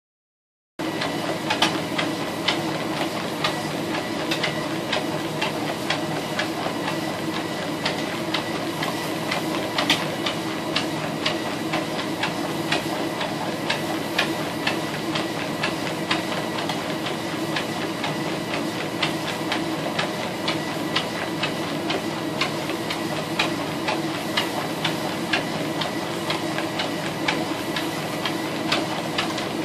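Motorized treadmill running with a steady hum and whine, overlaid with the regular tapping of a dog's paws trotting on the moving belt, a few steps a second.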